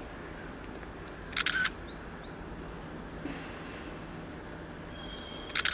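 Two camera shutter clicks, each short and sharp, about four seconds apart.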